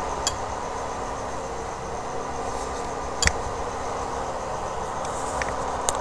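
Induction cooker switched on with a pan of water on its plate, its cooling fan running with a steady hum and hiss; two short clicks about three seconds apart.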